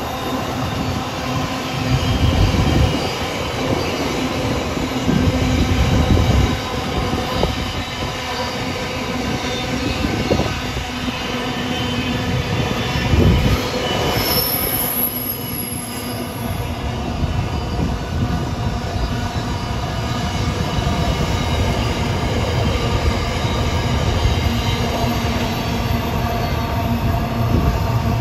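Freight train wagons rolling past, wheels squealing in several steady tones over a continuous rumble, with a few heavy knocks along the way.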